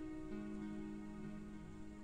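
Soft, slow instrumental background music of long held notes, with a new low note coming in a moment after the start.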